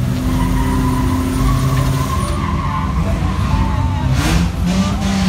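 A motor vehicle running with a steady low hum, over which a long, slightly wavering high squeal sounds in the first half. Near the end there is a brief whoosh.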